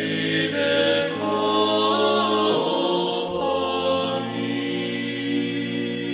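A cappella Orthodox choir chanting in Church Slavonic, holding long, slowly changing chords over a steady low bass note.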